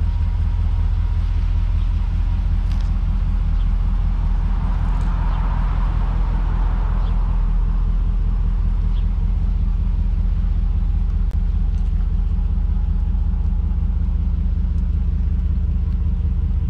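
Pickup truck engine idling, a steady low rumble that holds even throughout.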